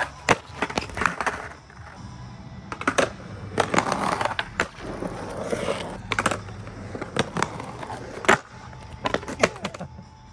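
Skateboard wheels rolling on concrete, with repeated sharp clacks as the board and trucks strike the coping and the ground. The loudest crack comes about eight seconds in, and a board clatters on the concrete near the end.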